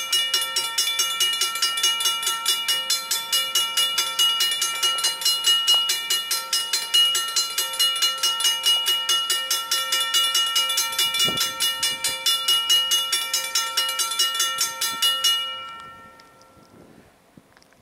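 Railroad grade crossing bell ringing steadily, about three strikes a second, then stopping about fifteen seconds in.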